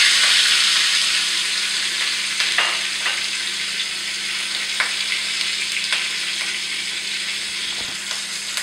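Green chillies and curry leaves sizzling in a small pan of hot mustard oil for a tempering (tadka). A loud, steady hiss slowly dies down, broken by a few sharp pops.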